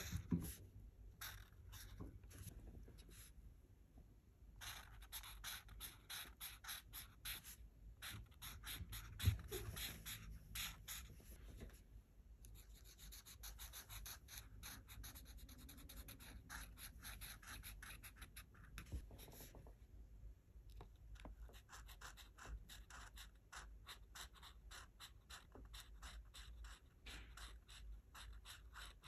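Art marker nib rubbing across paper in quick back-and-forth colouring strokes, several a second, pausing briefly a few times. A single soft knock about nine seconds in.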